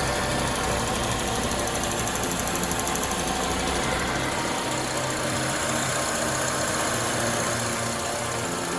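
2003 Honda Element's 2.4-litre four-cylinder engine idling steadily at operating temperature, with its low rumble dropping away about halfway through. The idle is smooth now that the too-tight exhaust valve clearances have been adjusted, which cured the rough idle and the cylinder 1 misfire.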